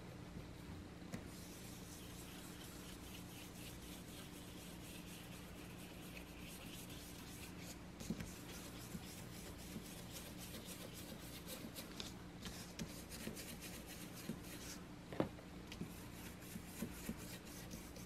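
Foam ink-blending brush rubbing ink onto embossed cardstock: faint, soft scratchy brushing strokes, more distinct in the second half, with light taps and one sharper tick about three-quarters of the way through.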